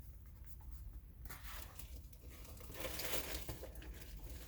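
Packaging rustling and crinkling as items are handled, starting about a second in and loudest around the middle.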